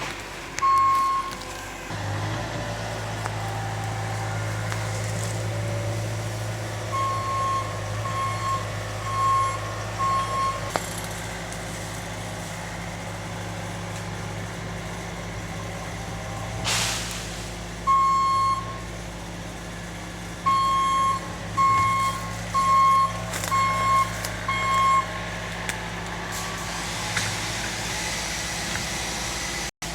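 Heavy vehicle's diesel engine running steadily while its reversing alarm beeps in several runs of evenly spaced beeps, with one short hiss about halfway through.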